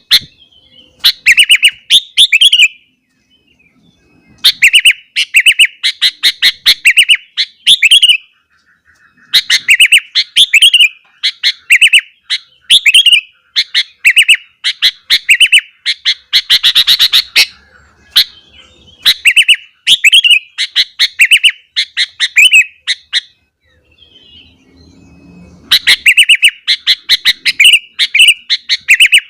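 Sooty-headed bulbul (kutilang) singing loudly in runs of quick, repeated chirping notes, with pauses of a second or two between runs.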